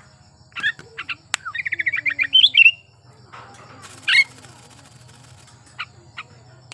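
Sooty-headed bulbul (kutilang) singing. A few short calls lead into a fast run of chirping notes that rises in pitch about two seconds in, the loudest part; a single call follows at about four seconds and a couple of short notes near the end. A steady low hum runs underneath.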